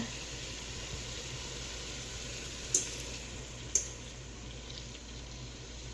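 Melted butter poured over drained potatoes in a pot on a low burner, giving a faint, steady hiss. Two light clicks come about a second apart near the middle.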